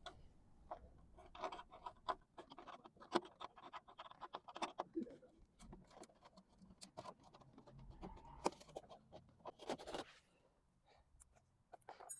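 Faint, irregular scraping, rustling and clicks of a plastic wheel-arch liner being handled and fitted, quieting down near the end.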